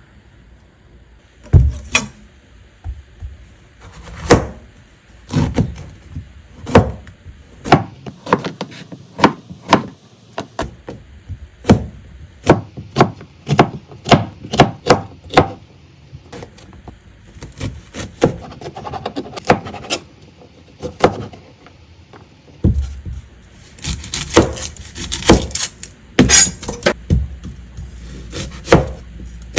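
Irregular knocks and clacks of kitchen prep: utensils, containers and a wooden cutting board being handled and set down. A few short rustling or scraping sounds come near the end.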